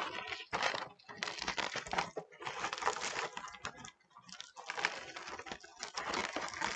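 Two air-filled 20-inch Qualatex Starpoint foil balloons crinkling and crackling as their necks are knotted together by hand, with irregular small clicks from the foil.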